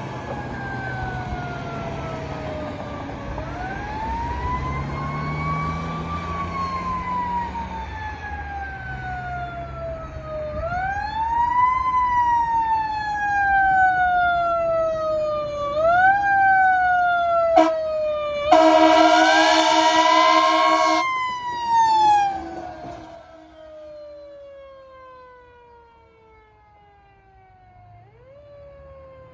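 Fire engine siren sounding in long sweeps, each rising quickly and then falling slowly, getting louder as the truck comes near and fading as it moves off. About 18 seconds in, a loud horn blast lasting roughly two and a half seconds sounds over the siren. Near the end a second siren starts faintly.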